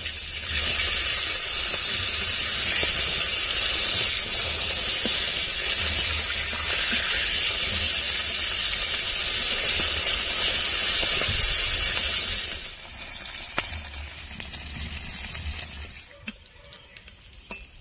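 Pieces of bhola fish frying in hot oil in a steel karahi, a loud steady sizzle that drops off sharply about two-thirds of the way through. A few light clicks follow near the end.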